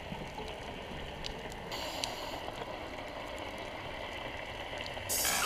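Underwater ambience at a coral reef: a steady rush and hiss of water with a few faint clicks, growing louder near the end.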